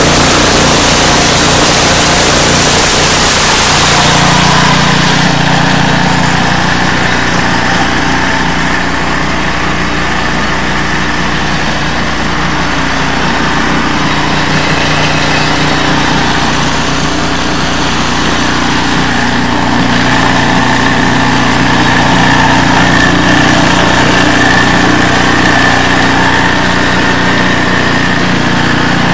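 Briggs & Stratton single-cylinder engine of a REDVERG two-stage snowblower running steadily. For the first four seconds a loud rushing hiss lies over it.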